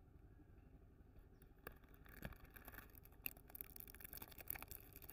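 Faint crinkling of a shiny plastic candy wrapper handled between the fingers: a scatter of small crackles and clicks beginning about a second and a half in.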